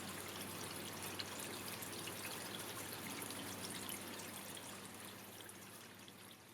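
Rain falling, a steady wash of noise with many small drop ticks in it, fading out over the last couple of seconds.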